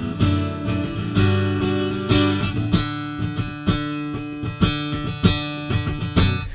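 Guitar strumming chords, an instrumental passage of a song without singing.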